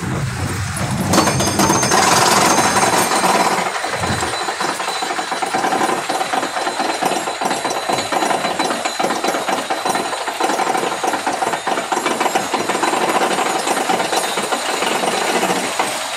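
Mine train roller coaster climbing a chain lift hill, heard from aboard the train: a fast, continuous clatter of the lift chain and anti-rollback ratchet, with a steady whine over it. The clatter starts about a second in.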